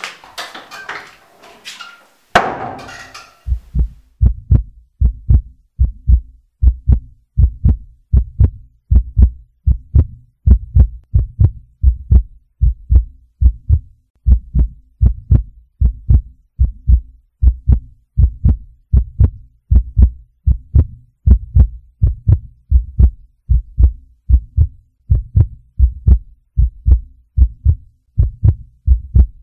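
Heartbeat sound effect: deep double thumps, lub-dub, repeating steadily at an even pace. They begin about three and a half seconds in, after a brief noisy sound with a sharp onset.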